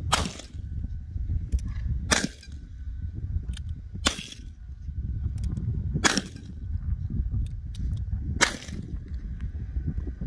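Five revolver shots fired into the air, about two seconds apart, each a sharp crack with a short echo.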